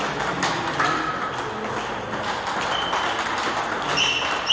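Table tennis rally: the ball clicking off the bats and the table in quick succession, with a few short high squeaks from about three seconds in.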